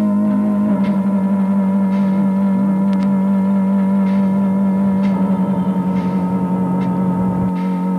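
Background music: a held, wavering electronic tone over a steady low drone.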